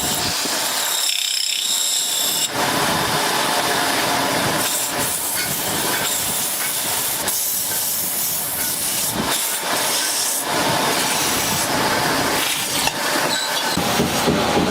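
Loud, steady hissing noise from ceiling-fan workshop machinery, with a few sharp knocks in the second half.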